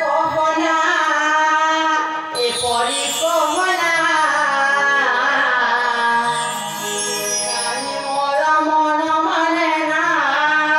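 Music with singing: a voice sings a bending melodic line over long sustained instrumental tones, with a high falling sweep about two seconds in.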